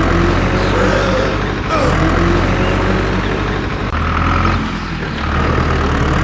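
A vehicle engine running steadily with a deep, even hum. The hum drops out briefly about a second and a half in and again about four seconds in.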